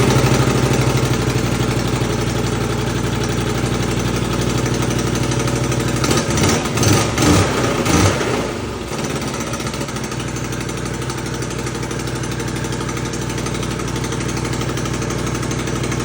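Can-Am Outlander 570's V-twin engine running, just started after a top-end rebuild with new piston rings. It idles steadily, is revved unevenly a few times about six to eight seconds in, then settles back to a steady idle.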